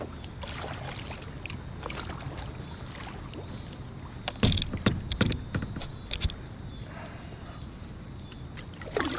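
Water slapping and sloshing against a 10-foot Pelican kayak's plastic hull as it rocks on a passing boat's waves, over a steady rush of water and wind. About halfway through comes a quick cluster of sharper slaps and knocks, the loudest part, with a couple more a second or so later.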